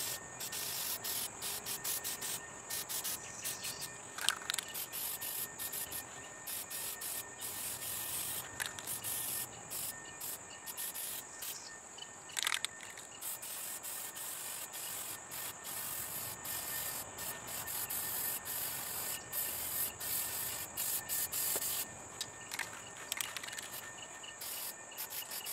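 Aerosol can of matte clear coat hissing in short, repeated bursts as it is sprayed, with brief pauses between passes. Under it, a steady high-pitched buzz of insects.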